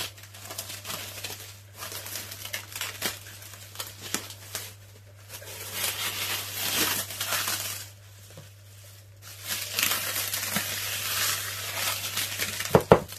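Plastic cling film crinkling and rustling in stretches as it is peeled slowly off a loaf pan of risen bread dough. A couple of sharp knocks come near the end.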